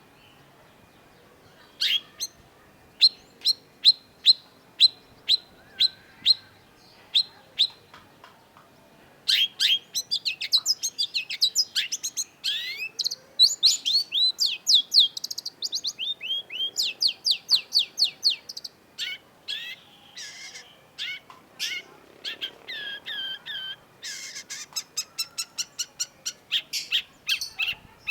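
Long-tailed shrike singing. After a short pause comes a string of sharp single chirps about twice a second. From around nine seconds it breaks into a fast, dense run of quick downward-sliding notes and chatter.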